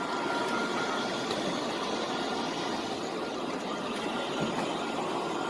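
Strong storm wind blowing steadily, a dense, even rushing noise with no distinct strikes.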